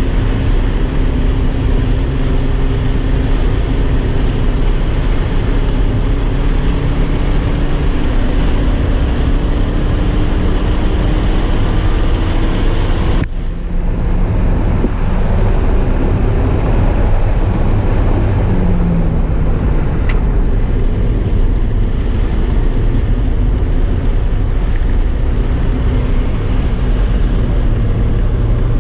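Porsche 944's four-cylinder engine running hard at speed, mixed with wind and road noise. Its pitch climbs slowly, then the sound changes abruptly about halfway through and the engine carries on at a lower pitch.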